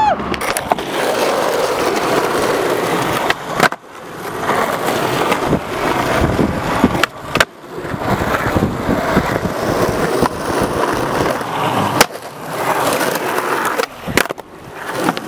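Skateboard wheels rolling over rough asphalt, with a few sharp clacks of the board hitting the ground along the way.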